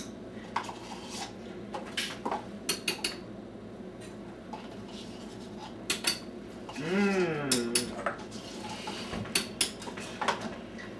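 Kitchen utensils clinking against dishes and containers, scattered sharp clicks, as yogurt is added to a blender. A brief voiced sound falls in pitch about seven seconds in.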